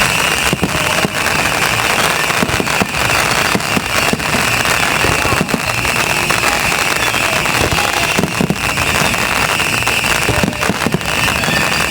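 Aerial fireworks going off in quick succession: a dense, continuous crackling with many overlapping pops and bangs.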